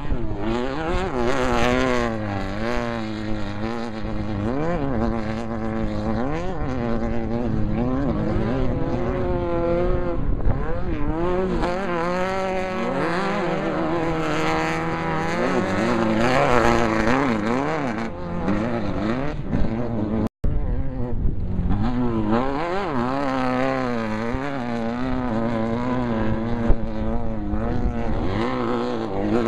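Off-road race vehicle's engine running hard, its pitch rising and falling over and over as it revs and shifts, over a steady wash of wind and road noise. The sound cuts out for an instant about twenty seconds in.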